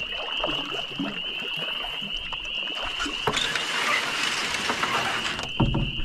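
Canoe hull bumping and scraping against the rocks as it noses in to shore, with a wider grinding scrape from about the middle on and low thuds near the end. A steady high-pitched trill runs behind it.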